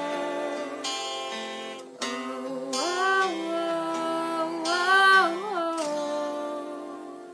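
Instrumental intro of a pop song's backing track: sustained chords, with a wordless vocal line that swells and glides up twice, about three and five seconds in.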